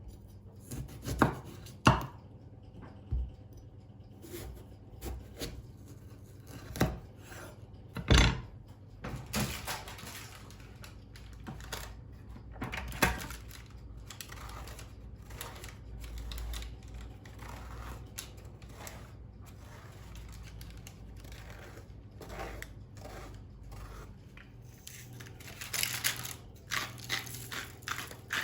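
Kitchen food-preparation sounds: scattered knocks and clatters of utensils on hard surfaces, with a quick run of knocks near the end like chopping on a board.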